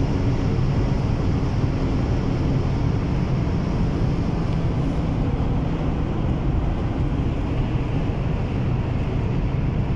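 Inside the cabin of a 1999 Honda Civic 1.5 VTEC at high speed: the four-cylinder engine runs steadily under heavy wind and road noise.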